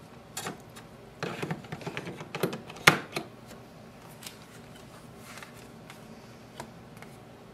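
Plastic clicks and knocks as an ink cartridge is slid into a Brother MFC-J1010DW printer's cartridge bay, with one sharp, loud click about three seconds in as it locks into place.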